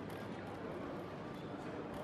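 Airport terminal hubbub: indistinct voices and general noise of travellers and trolleys in a large check-in hall, steady throughout.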